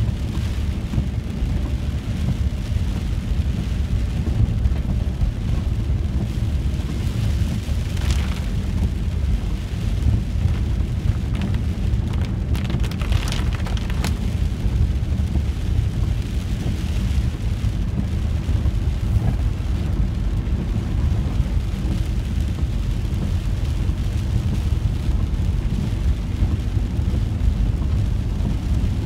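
Cab of a VW T4 campervan driving on a wet road in rain: a steady low engine and road rumble with the hiss of tyres on wet tarmac and rain on the windscreen. Brief louder swishes come about eight seconds and about thirteen seconds in.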